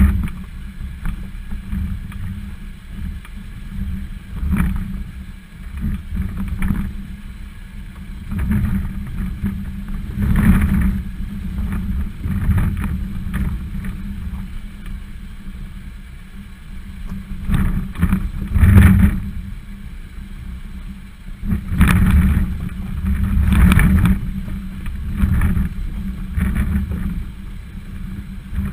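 Volvo XC60 crawling over a rocky 4x4 trail, heard from a bumper-mounted camera: a steady low rumble with wind on the microphone, and loud knocks and jolts as the tyres roll over and drop off rocks. The hardest knocks come a bit past halfway and again in the last third.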